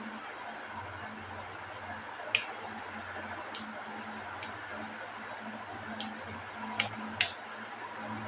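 Plastic screw cap of a Bovonto soda bottle being twisted open by hand, giving about six sharp, separate clicks spread from a couple of seconds in to near the end. A low steady hum runs underneath.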